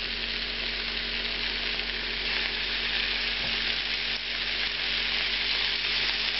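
Floured chicken thighs frying in hot oil in a skillet, floured side down to brown: a steady sizzle that grows slightly louder as more pieces are laid in.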